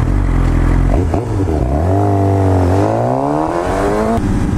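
Sport motorcycle engine pulling hard, heard from the rider's seat: the revs climb through the gears with a brief dip at each shift, then drop away suddenly just past four seconds as the throttle closes.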